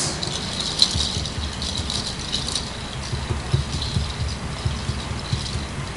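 Continuous soft rattling, like a shaken percussion rattle, with faint low thumps underneath.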